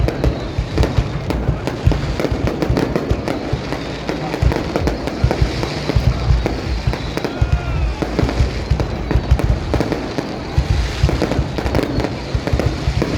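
Fireworks display going off in a dense barrage: rapid cracks and bangs, several a second, without a break.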